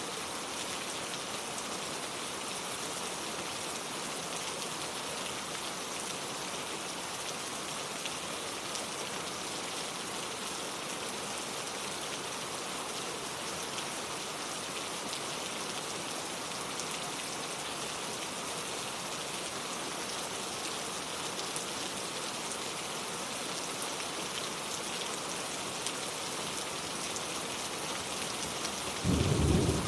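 Steady rain falling, an even hiss of many drops. Near the end there is a brief louder low rumble.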